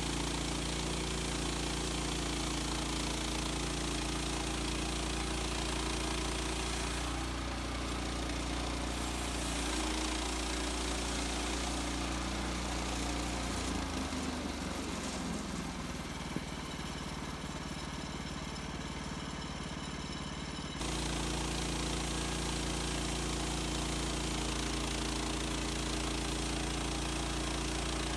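The gas engine of a Woodland Mills HM130 Max portable bandsaw mill runs steadily while milling a white pine log. Its low note shifts and drops from about halfway through, then jumps back to its earlier note about two-thirds of the way in.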